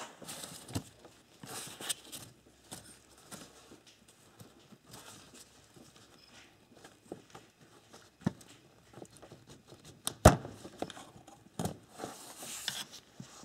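Handling noises in a car's engine bay: a gloved hand rustling, with scattered small clicks and knocks as rubber vacuum hoses are worked off the MAP/BARO switch solenoid. One sharper click comes about ten seconds in.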